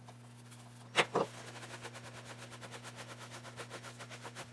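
Two sharp knocks about a second in, then quick repeated rubbing strokes, about five a second, as a thinned black acrylic wash is worked over a textured EVA-foam egg on a stainless-steel bench. A steady low electrical hum runs underneath.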